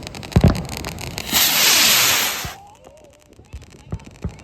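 Fireworks going off: a sharp bang about half a second in, rapid crackling, then a loud hiss lasting about a second, followed by scattered pops.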